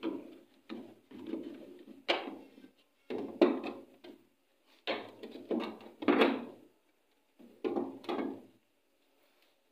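Clunks and scrapes of an open-end wrench and a metal cover panel being worked loose on a single-tub washing machine: about eight short knocks and scraping rubs in an uneven series, stopping about a second before the end.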